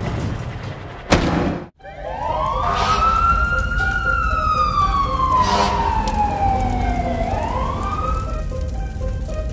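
Emergency vehicle siren wailing over a low engine rumble: one slow rise and fall, then starting to climb again near the end. A sharp burst comes just before it, about a second in.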